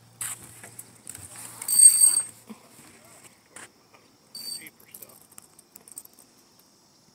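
Fishing reel in use: a short, high-pitched whirring squeal about two seconds in, the loudest sound, a shorter one near the middle, and scattered light clicks.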